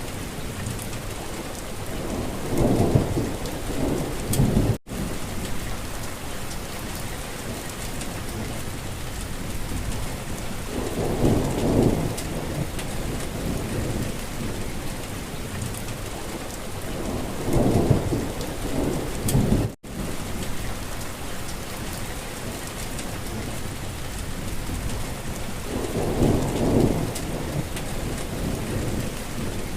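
Steady rain hiss with four low rumbles that swell and fade, each lasting a second or two. The sound cuts out for an instant twice.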